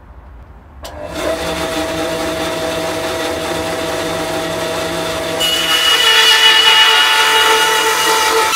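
Bandsaw switched on with a click about a second in, then running steadily. From about halfway it grows louder, with a higher whine, as its narrow blade begins cutting into the wooden board.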